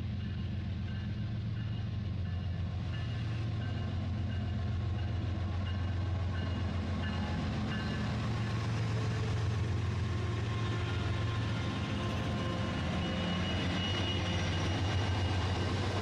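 A Rail King toy train's small motor and wheels running along plastic track: a steady rattling buzz that slowly grows louder as the train comes closer.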